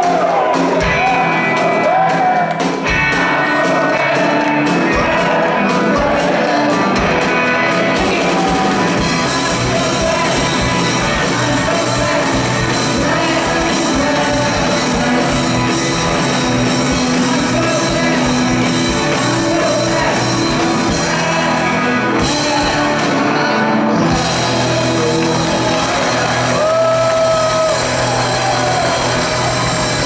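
Live rock band of electric guitars, bass guitar and drums playing loud in a hall, heard from among the audience, with singing and shouts from the crowd.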